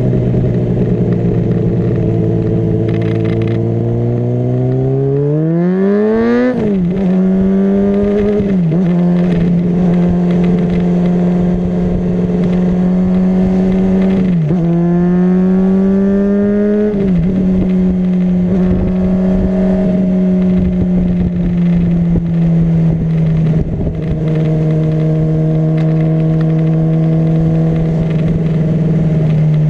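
Honda CBR600RR's inline-four engine under way on the road. It runs steadily, then revs climb and snap down twice in quick succession a few seconds in, as it shifts up through the gears. The revs dip and climb again about halfway through, drop suddenly, and hold steady to the end.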